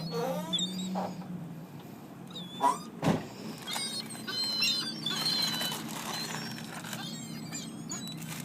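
A group of birds chirping and squawking in many short, squeaky calls, with two sharp, loud calls about three seconds in, over a steady low hum.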